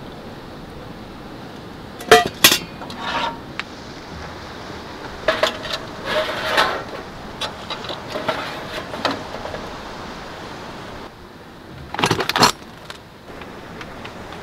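Metal cookware being handled on a camp stove: a skillet and utensils clink and clatter, with sharp clinks about two seconds in, a run of lighter rattling in the middle, and another cluster of clinks near the end, over a steady background hiss.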